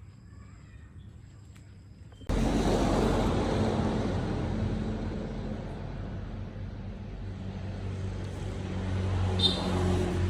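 Steady vehicle noise, a low engine hum under a rushing noise, starting suddenly a little over two seconds in after quieter sound; a short high squeak near the end.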